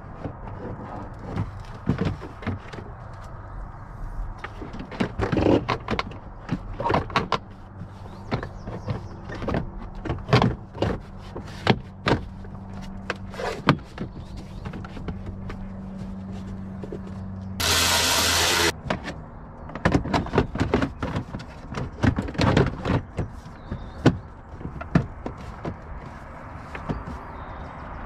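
Hard plastic cargo-floor panels and the tool tray of a 2017 Toyota Highlander being handled and fitted back into the rear cargo well: repeated knocks, clacks and clicks of plastic on plastic. Partway through, a loud rushing noise lasts about a second.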